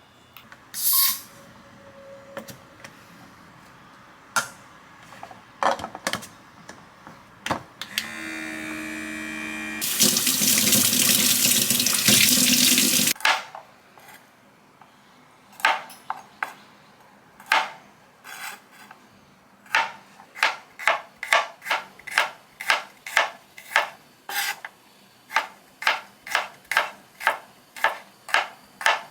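A tap runs into the sink, first filling a container with a rising ring and then running full for about three seconds before it is shut off abruptly. Then come rhythmic rubbing or scrubbing strokes, speeding up to about two a second.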